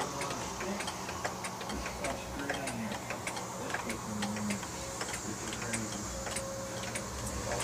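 Seth Thomas King Bee clock ticking steadily.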